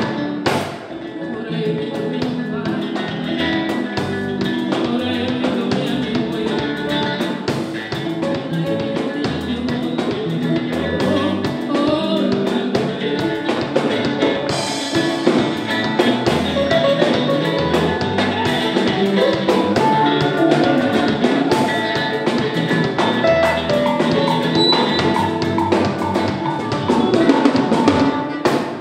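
Live band music with a steady beat: drum kit, electric guitars and bass guitar playing together.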